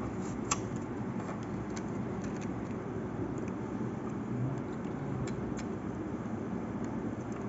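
Steady background rumble with a few light, sharp clicks and ticks, one clearer about half a second in, as a knife cutter works the taped glass touch panel loose from the treadmill console.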